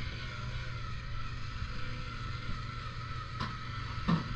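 Rear-loader garbage truck's diesel engine idling steadily with a steady high whine. Two sharp knocks near the end, the second the loudest, as a trash cart is handled at the back of the truck.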